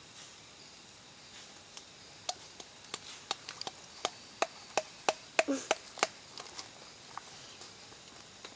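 White-lipped peccaries clacking their teeth: a run of about a dozen sharp clicks, two or three a second, between about two and six seconds in. The clacking is the species' threat display. A steady high insect buzz runs underneath.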